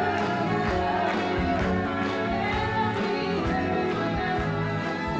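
Music with sustained chords and a steady beat.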